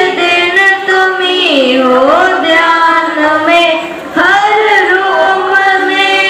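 A group of schoolgirls singing together in unison, holding long notes that glide in pitch, with a short pause for breath about four seconds in.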